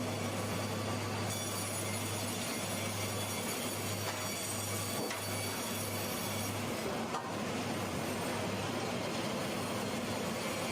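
Machinery running steadily with a low hum, which turns choppy after a couple of seconds and stops about two-thirds of the way through.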